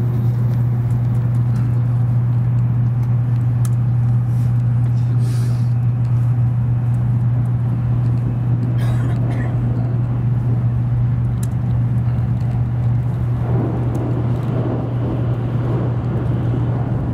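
Cabin running noise of an N700 series Shinkansen at speed: a steady low hum under a rushing roar. In the last few seconds a rougher rumble joins as the train runs onto a steel truss bridge.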